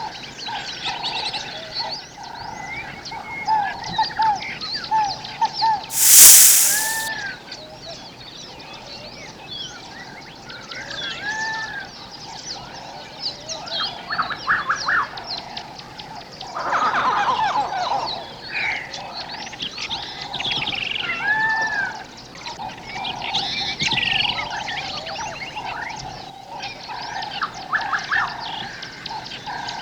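A dense chorus of wild animal calls in tropical forest, layering frog-like croaks and trills, bird calls and a steady pulsing call, with a short arching call that repeats every few seconds. About six seconds in comes one loud, hiss-like burst lasting about a second.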